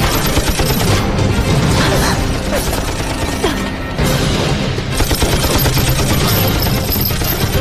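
A battle of film gunfire: many rifle shots and bursts of machine-gun fire in quick, overlapping succession, with booms among them, over a dramatic music score.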